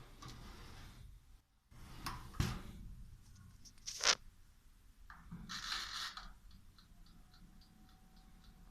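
Flama 1545FL convection mini oven being handled and switched on: scraping and rustling, a sharp click about four seconds in, then the oven running with a faint steady hum and an even ticking about three to four times a second. The owner asks whether this fan noise is normal.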